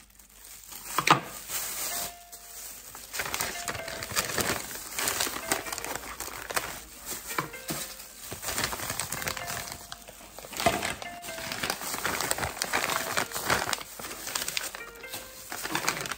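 Plastic food packets crinkling and rustling as they are handled, with a sharp click about a second in.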